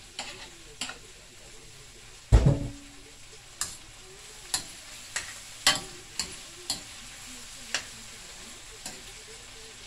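Chopped tomato and seasonings sizzling in hot oil in a stainless steel pan, while a knife stirs and taps against the pan in a string of sharp clicks. One loud knock on the pan about two seconds in is the loudest sound.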